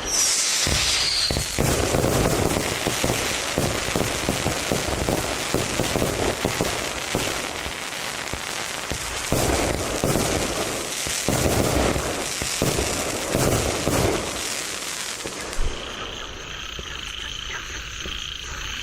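Szakal fireworks cake (battery) firing: a rapid run of launch thumps and crackling bursts. In the last few seconds the shots thin out under a steady high whistle.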